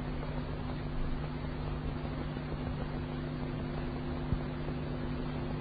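Steady hiss and low hum from an old recording of a Quran recitation, in a pause between verses, with one faint click about four seconds in.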